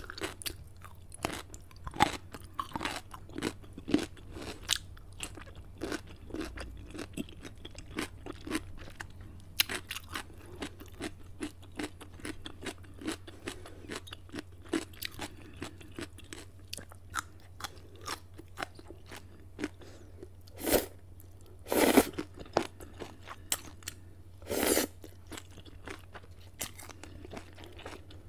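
Close-miked chewing of kimchi: many small sharp crunches and wet chewing noises at an irregular pace, with a handful of louder, half-second mouth sounds in the second half.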